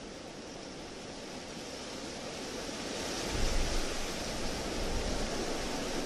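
Wind gusting: a steady rushing noise that builds up, with a deep rumble of stronger gusts about three and a half seconds in and again near five seconds.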